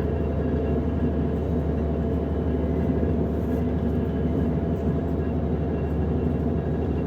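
DB class 425 electric multiple unit running steadily, heard from inside the passenger compartment: an even rolling rumble with a few faint, constant whining tones over it.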